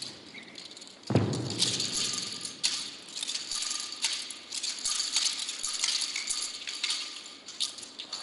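A wushu spear being whipped, circled and thrust through the air, making quick swishes and rattles in an irregular rhythm throughout. There is a heavy thump about a second in.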